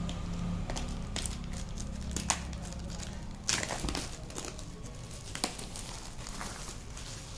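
Clear plastic shrink-wrap being peeled and torn off a cardboard box, crinkling and crackling throughout, with several sharper crackles along the way.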